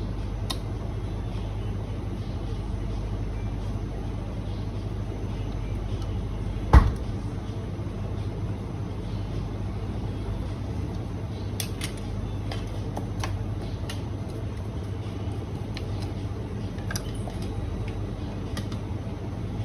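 A steady low hum, with one sharp knock about seven seconds in and a few light clicks later, as hard parts are handled.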